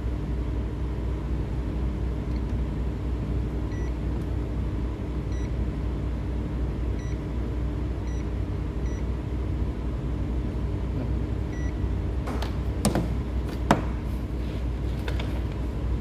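Steady low background hum with about six faint short beeps spread through the middle, then a few handling clicks and knocks near the end, one sharper than the rest.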